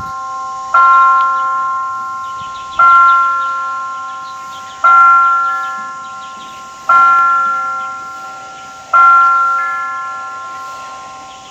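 A tower bell struck five times at an even pace, about two seconds apart, each strike ringing on and fading away before the next.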